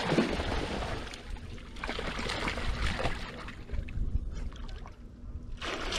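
Dogs splashing and wading through shallow lake water: uneven sloshing and trickling, heaviest in the first second or so and again near the end, quieter in between.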